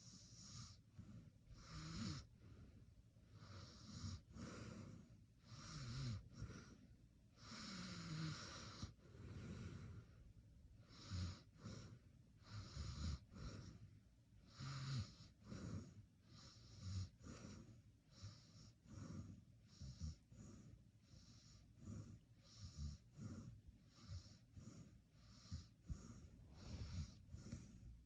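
A sleeping person snoring faintly: quick, uneven breaths with a wheezy hiss, some with a low snort, one or two a second.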